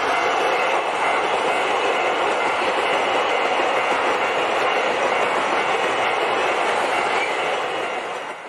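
Seven-car KiHa 261 series diesel express train running past at speed: a steady rolling rush of the train on the rails, which starts to fade away near the end.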